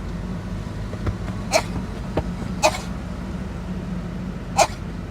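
A month-old bottle lamb coughing: three short, sharp coughs about a second apart, then a pause, then a last one near the end. It is not the wheezy kind of cough. A steady low hum runs underneath.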